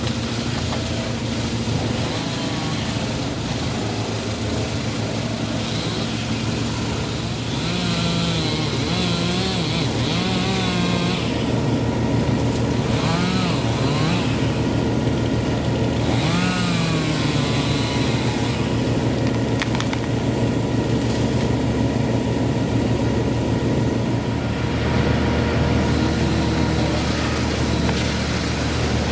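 An engine runs steadily. Wavering pitched sounds ride over it from about a quarter to about two thirds of the way through, and its note shifts near the end.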